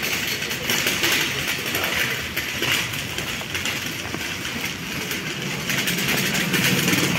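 Empty wire shopping trolley rattling as it is pushed over paving and into a shop, its wheels and metal basket clattering continuously.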